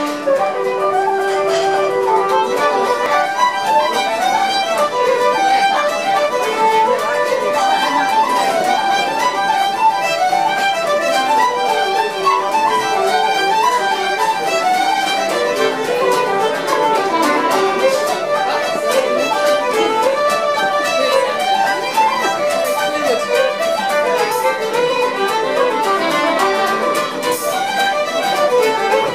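Irish traditional music session: a keyed simple-system flute and several fiddles playing a lively tune in unison, with an acoustic guitar strumming along.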